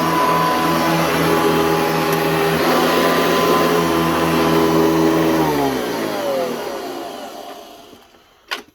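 Hoover C1609 industrial upright vacuum cleaner with its 4.8 amp motor running steadily, then switched off about five and a half seconds in and winding down, its pitch falling as it fades out.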